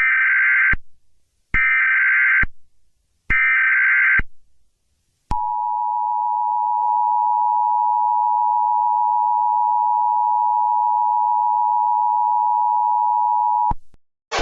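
Emergency Alert System tones: three short bursts of the screechy SAME digital header, then the two-tone EAS attention signal, held steady for about eight seconds before it cuts off.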